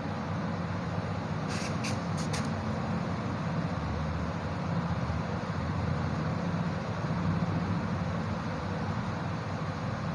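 Steady background rumble and hiss, with four short high scratches of a marker writing on a whiteboard about one and a half to two and a half seconds in.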